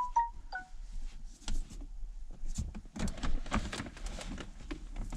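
Irregular clicks, knocks and rattles of hand tools and trim parts being handled at a car's steering wheel while its airbag bolts are worked loose, busiest around the middle. A short run of quick high pips at the very start.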